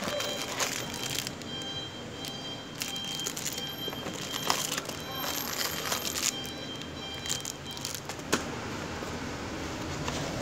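Packaging and a plastic CCTV camera being handled: irregular rustling, crackling and small clicks, with one sharp knock about eight seconds in.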